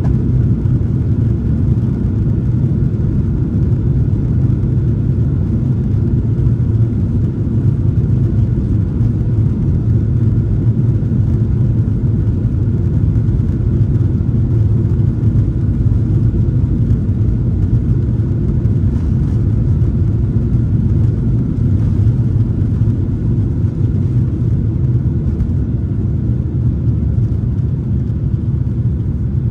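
Low, steady rumble inside the cabin of a Boeing 737-900ER during takeoff, from its two CFM56-7B turbofans at high thrust. A faint steady tone rides above the rumble, which holds level throughout.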